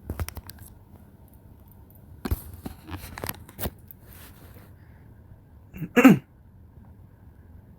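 Scattered light clicks and handling rustles, then one short, loud vocal sound about six seconds in.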